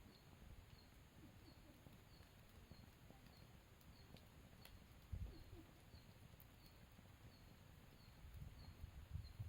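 Faint campfire ambience: a low rumble with a few sparse crackles and two dull low thumps, one about halfway and one near the end. A soft high chirp repeats evenly, about three every two seconds.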